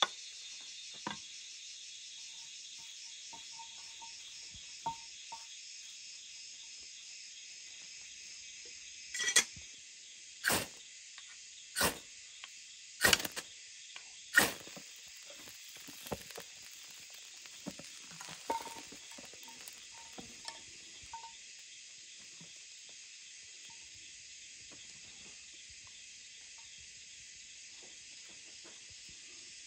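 Knife spine scraped hard down a ferro rod five times, about a second apart, throwing sparks onto a dry grass tinder bundle, followed by a few light clicks. Steady insect chirring runs underneath.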